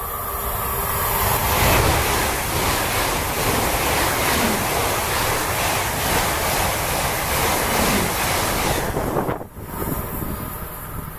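ICE high-speed electric train passing close by at speed: a dense rushing noise that builds over the first two seconds, holds for several seconds, then drops away sharply as the train clears, about nine seconds in.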